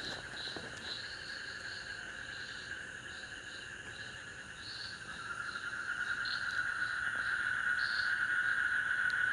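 Steady night chorus of insects, with short irregular higher chirps over it. It grows louder in the second half.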